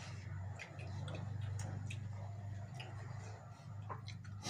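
Quiet sounds of people eating rice with their hands: scattered small clicks and smacks from chewing and from fingers working the food on plates, over a low steady hum.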